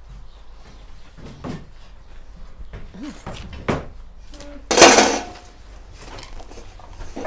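Scattered knocks and clinks of household things being handled, with one loud scrape lasting about half a second near the five-second mark.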